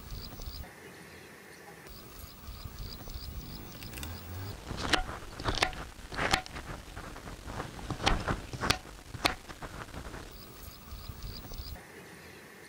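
Kitchen knife chopping onion on a wooden cutting board: a run of sharp chops from about five to nine seconds in, the loudest a little over half a second apart. A rapid, even insect chirping goes on in the background.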